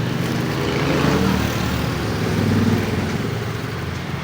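A steady low engine-like hum with background noise.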